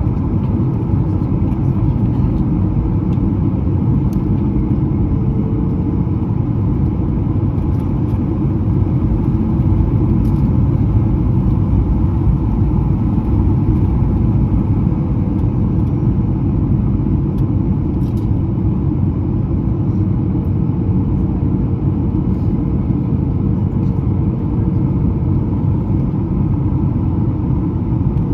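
Steady cabin noise of a Boeing 737-900 airliner in flight: an even, low rumble of jet engines and rushing air, with a faint steady hum above it.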